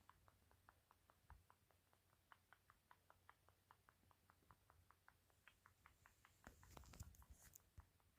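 A sleeping cat making a faint, funny noise: rapid little clicking squeaks, about five or six a second, unevenly spaced. A brief louder rustle comes about two-thirds of the way in.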